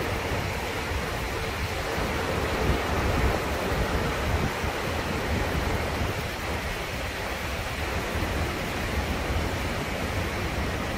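White-water mountain river, the Reuss, rushing over boulders in a steady, unbroken wash of water noise, with a low rumble underneath.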